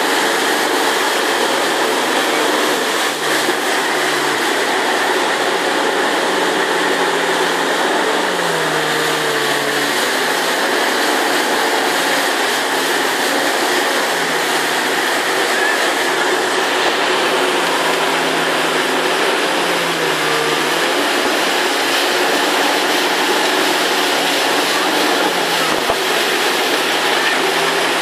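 Motorboat engine running at speed while towing inflatable tubes, its pitch dipping and recovering a few times, under the steady rush of churned water from the wake and wind.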